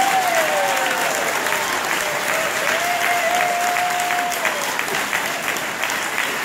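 Audience applauding steadily. Over the applause in the first four or five seconds come a couple of long, held calls.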